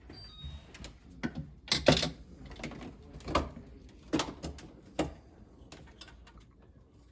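Irregular plastic clicks and knocks, about half a dozen, the loudest around two seconds in, as the water filter housing assembly is worked out of an LG refrigerator.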